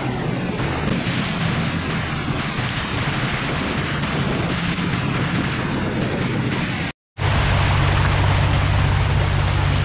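Speedboat under way: its engine drones steadily under the rush and splash of spray thrown off the hull. The sound drops out for a moment about seven seconds in, then the engine drone comes back steadier and stronger.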